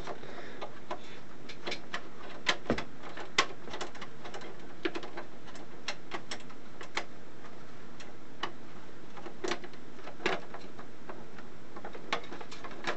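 Irregular small clicks and taps of a screwdriver working the small screws out of an oscilloscope's screen bezel, and of the bezel pieces being handled and lifted off. The clicks are sparse, with a few louder ones a few seconds in and again near the ten-second mark.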